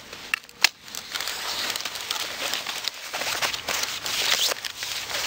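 Pruning secateurs snip once, sharply, about half a second in. Then dry rose twigs crackle and rustle as cut stems are pulled out of the bush.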